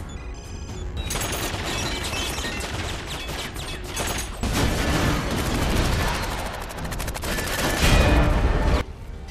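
Film action-scene soundtrack: rapid handgun fire over dramatic score music, building to a heavy explosion about eight seconds in that cuts off abruptly just before the end.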